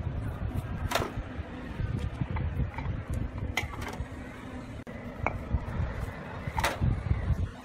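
Concrete paving blocks knocking against each other as they are set by hand into sand: a few sharp clacks, the loudest about a second in and near the end, over a steady low rumble.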